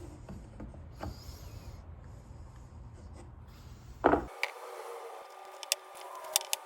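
Faint rubbing and small handling sounds of blue painter's tape being pressed onto the corners of a wooden box, with one louder short scrape about four seconds in.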